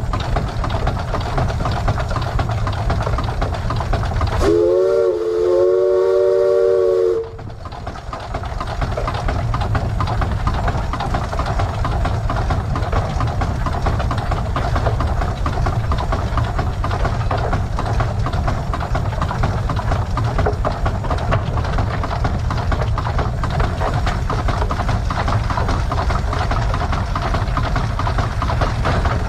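Case 150 hp steam traction engine running steadily, its steam whistle blown about four seconds in: a short toot followed straight away by a longer blast of about two seconds. The engine noise dips briefly after the whistle, then runs on steadily.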